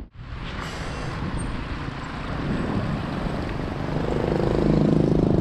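Motorcycle riding sound: the Yamaha XTZ 250's single-cylinder engine running under wind and road noise. About four seconds in, a steady engine hum grows louder.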